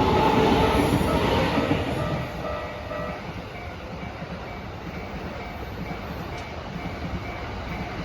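Toei 5500 series commuter train passing over a level crossing, loud for about the first two seconds and then fading as it draws away. The crossing's warning bell keeps ringing in a steady repeating rhythm.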